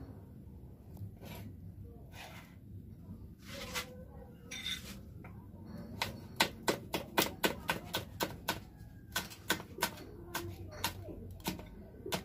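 A large kitchen knife chopping meat on a plate, a quick even run of sharp taps about three a second starting about six seconds in, with a few scattered taps before.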